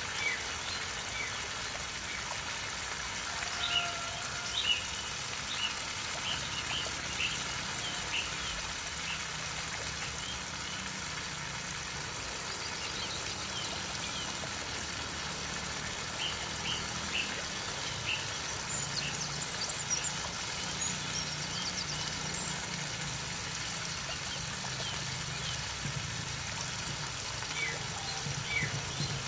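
Birds chirping in short, scattered calls, with a quick run of higher chirps past the middle. Underneath is a steady hiss and low bubbling from a pot of broth simmering on a portable gas stove.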